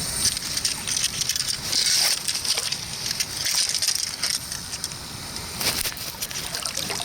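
River water rushing steadily, with scattered short splashes and rustling handling noises close by.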